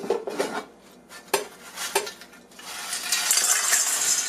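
Air fryer basket being handled with a few sharp clicks and knocks, then a batch of crispy french fries pouring and rattling into a stainless steel bowl over the last second and a half.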